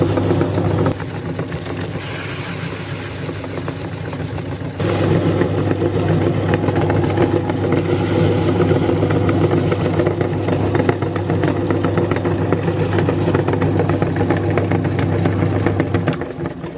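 Meat grinder motor running with a steady hum and grinding clatter. The hum drops out for about four seconds shortly after the start, then the grinder runs again until it stops just before the end.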